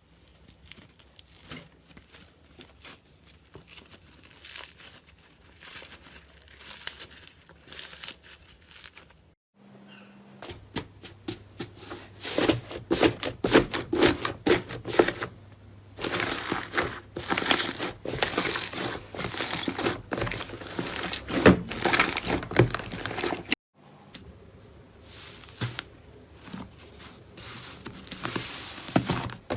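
Slime being squeezed and pressed by hand, with dense crackling and popping clicks. The sound stops briefly twice, about a third of the way in and again near the end, then goes on louder.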